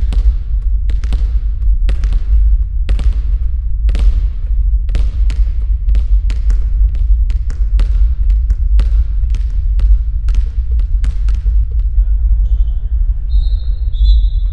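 A basketball dribbled steadily on a gym floor, about two bounces a second, each bounce ringing briefly in the hall over a steady low rumble. The bouncing stops about twelve seconds in, and a few short high squeaks follow.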